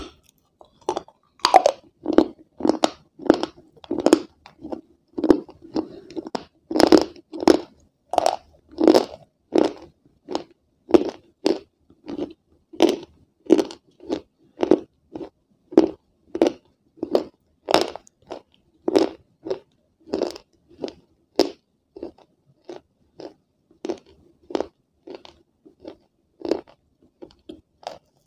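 Close-miked crunching as a person chews a bite of a hard white cube with her mouth closed, about two crisp crunches a second. The crunches grow softer toward the end as the bite breaks down.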